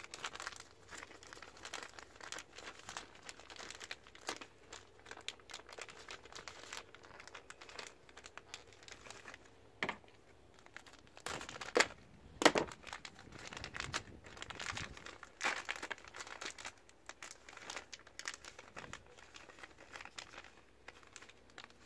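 Clear plastic bag crinkling as hands work it open: irregular crackling throughout, with a couple of louder snaps about halfway through.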